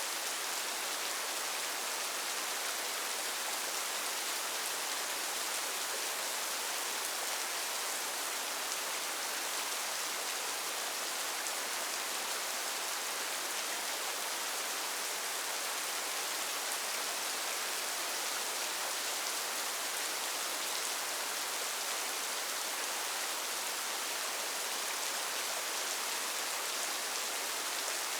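Steady rain falling, an even hiss with no thunderclaps or single knocks standing out.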